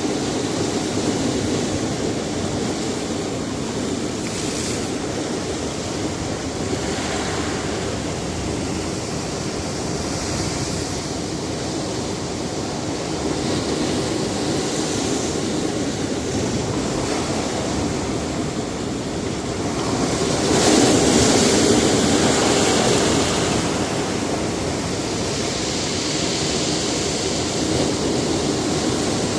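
Sea surf breaking on a rocky shore: a steady wash of waves with repeated swells, the loudest breaking about two-thirds of the way through.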